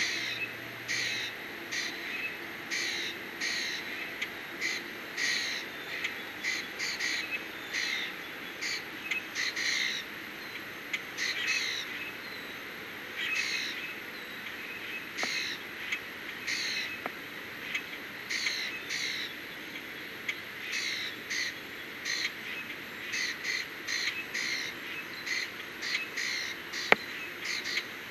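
Birds calling outdoors: a steady run of short, harsh calls, about one or two a second, with a single sharp click near the end.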